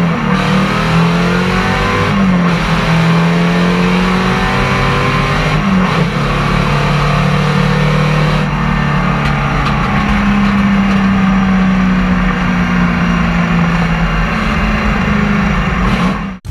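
Hot rod engine running loud and steady from inside the car's cabin while driving, its pitch dipping and shifting a few times.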